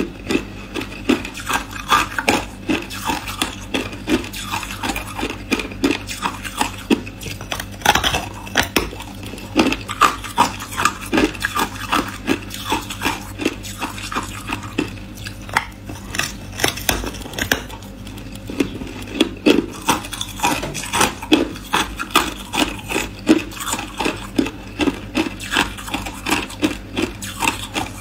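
Hard ice making sharp crunches and clicks in an uneven, steady run, about two or three a second.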